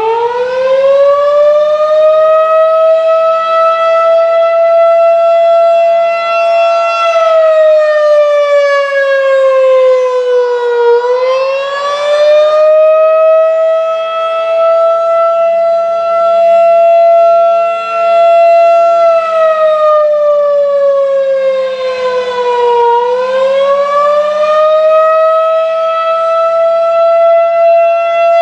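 Federal Signal 2001-DC electromechanical outdoor warning siren sounding a custom attack signal. It finishes winding up to a loud, steady high tone in the first second, then twice (about 7 and 19 seconds in) sags slowly in pitch over about four seconds and winds back up to the steady tone.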